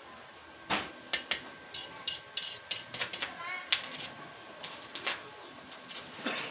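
Stick-welding arc from a Mitsushi 300S inverter welder, set to about 90 amps, crackling and popping in short irregular bursts as the electrode is struck and tacked on scrap steel. The first sharp crack comes under a second in.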